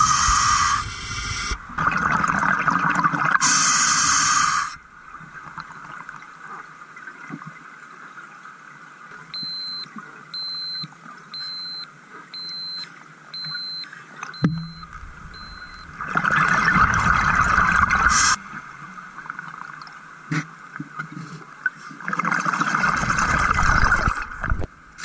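Scuba regulator exhaust bubbles from the diver's breathing, loud rushing bursts a few seconds apart with quieter stretches between. In the quiet middle stretch a wrist dive computer sounds its alarm: about eight short high beeps in an even row.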